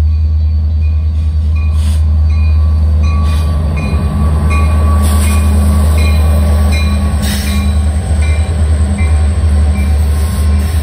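Union Pacific EMD SD70M diesel locomotives running past at close range, with a heavy, steady low engine rumble. Occasional sharp wheel clacks on the rails sound over it, along with a short ringing tone repeating about twice a second.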